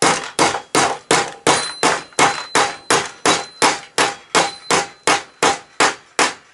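Hammer blows on a metal bracket blank clamped in a bench vise, bending it cold. The strikes come evenly, about three a second, each with a short metallic ring.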